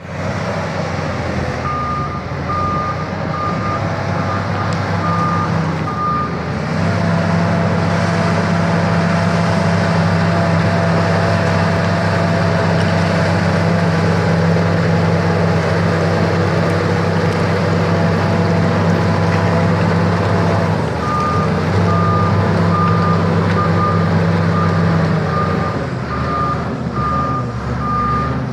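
SEM 816 crawler bulldozer's diesel engine running steadily, its reversing alarm beeping rapidly for the first few seconds and again through the last third. Between the two spells of beeping the engine runs louder and steadier.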